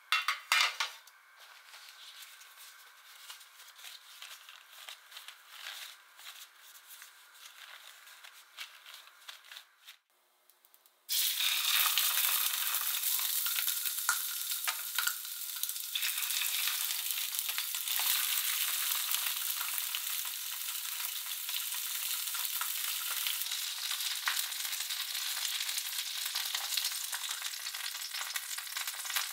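Faint clicks of kitchen handling, then after a short hush about eleven seconds in, sea bream fillets start sizzling in hot oil in a stainless steel frying pan, a loud, steady hiss that keeps going.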